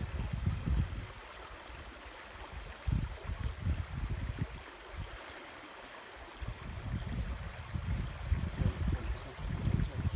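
Small stream running over stones: a steady rush of water, broken by gusts of low rumbling on the microphone.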